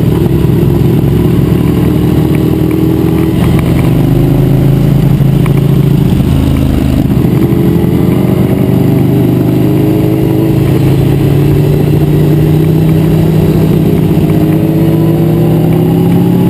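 BMW S1000RR inline-four engine heard from on the bike, pulling at low revs in a steady note, then revs dipping briefly about seven seconds in and climbing steadily as the bike accelerates, rising faster near the end.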